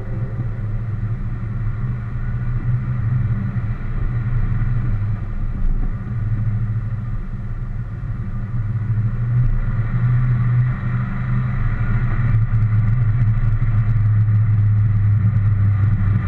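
Car engine running steadily with tyre and road noise, picked up by a camera mounted on the car; it gets a little louder after about ten seconds.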